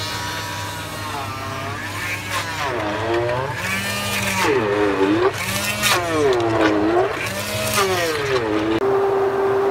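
Commercial immersion blender running in a bucket of halved raw tomatoes, puréeing them. The motor's whine dips and climbs back again and again as the blade is worked down through the tomatoes, then holds a steady pitch near the end.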